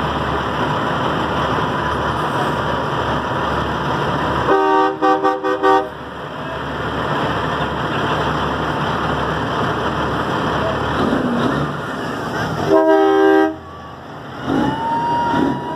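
Semi trucks rolling past with their diesel engines running, and truck air horns blasting: a quick series of short toots about four and a half seconds in, then one longer blast about thirteen seconds in.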